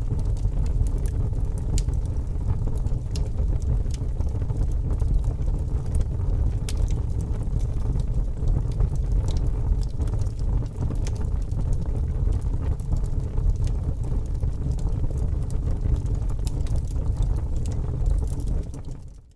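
Wood fire in a fireplace burning with a steady low rumble and scattered crackles and pops, fading out near the end.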